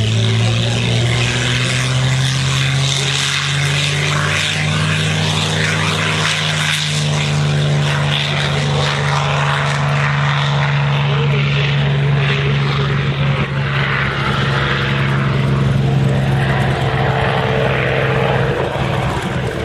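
Piston engines of WWII propeller aircraft running on the runway, a P-51 Mustang's among them. They make a steady drone whose pitch rises gently over the seconds.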